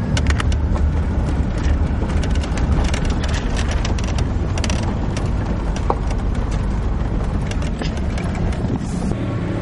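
Road and engine noise heard from inside a moving vehicle: a steady low rumble with frequent short clicks and rattles.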